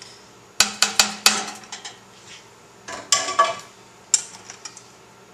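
Metal slotted spoon knocking and scraping against a glass casserole dish while spreading a ground beef mixture: a quick run of sharp clinks about half a second in, another cluster around three seconds, and a single clink near four seconds.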